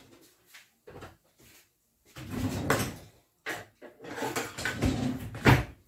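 Household handling noises: rustling and light knocks in two stretches, with a sharp knock near the end.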